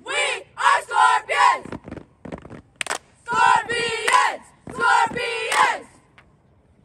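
A platoon of cadets shouting a drill chant in unison, in three loud shouted phrases, with a sharp hand clap between the first and second phrases.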